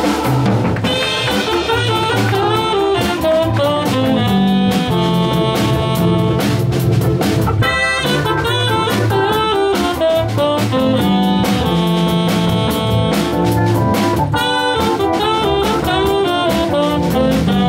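A live jazz combo playing an instrumental tune on organ, hollow-body electric guitar and drum kit, with a melodic line running over a steady bass part and drums.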